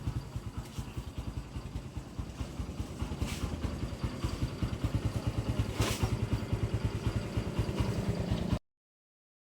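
Kawasaki Barako 175's single-cylinder four-stroke engine idling steadily with an even, rapid beat, freshly tuned with the carburettor, camshaft and valve clearance adjusted. The sound cuts off suddenly near the end.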